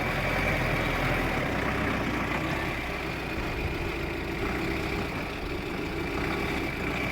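Engine of a 4×4 pickup truck running steadily at low revs.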